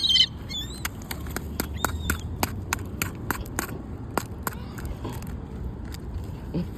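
Birds squawking briefly at the start and once about two seconds in, then a quick run of sharp clicks and taps for a few seconds, over a low steady rumble.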